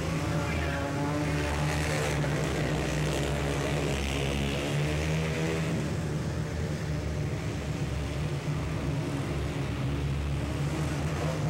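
Racing ATV engines running hard around a dirt flattrack, their pitch rising and falling as the quads accelerate out of the turns and pass.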